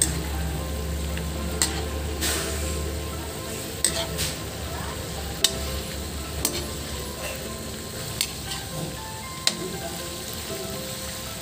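Bitter gourd and chicken sizzling in a wok as a metal spatula stirs them, with a steady hiss and sharp clicks of the spatula against the pan about every second.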